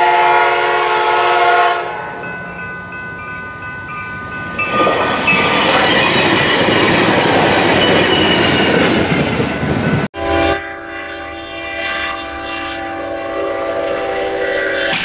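A train horn sounding a long blast as a passenger train nears a level crossing, then the train rushing through the crossing with its horn still blowing. After an abrupt cut, a freight locomotive's horn blows steadily as it bears down on a truck stuck on the tracks, and a loud harsh noise breaks out near the end as the collision begins.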